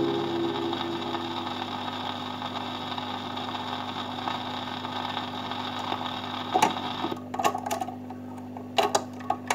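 Surface hiss of a 78 rpm shellac record playing on after the music ends, with a steady hum from the record player; the last notes die away in the first second or so. A few short clicks and knocks come near the end.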